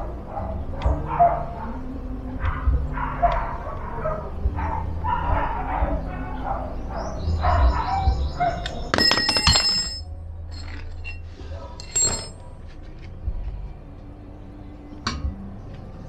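Metal clinks and a short ringing metallic clatter from an Allen key being worked at a bicycle pedal and crank arm, about nine seconds in and again at twelve seconds. Through the first half a dog yips and whines in the background.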